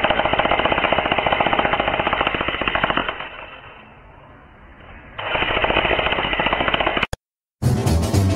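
Electric jackhammer pounding in rapid, even strokes. It stops for about two seconds midway, starts again, and cuts off abruptly near the end, where music begins.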